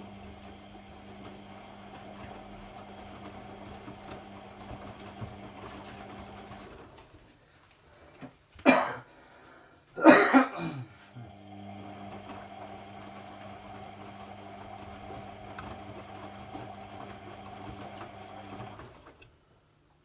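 AEG Lavamat 50435 front-loading washing machine in its main wash: the drum motor hums steadily as it tumbles the wet laundry, stops for about four seconds, then starts again and runs until shortly before the end. During the pause come two loud coughs about a second and a half apart.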